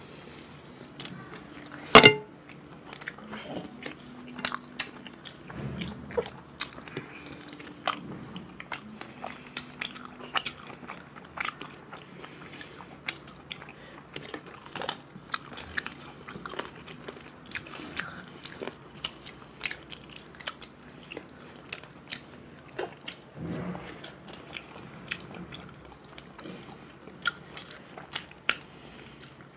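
Close mouth sounds of two people biting and chewing pieces of chicken curry eaten by hand, with many small crunches and clicks. One loud sharp knock about two seconds in.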